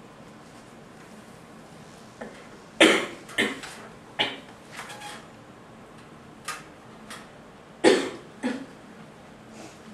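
A person coughing several times in a quiet room: a run of short coughs starting about three seconds in, and another pair near the end.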